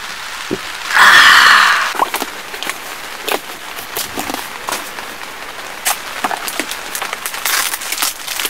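Plastic food packaging being handled and opened, with a loud half-second rustle about a second in, followed by scattered crinkles and clicks. Rain hisses steadily on the car.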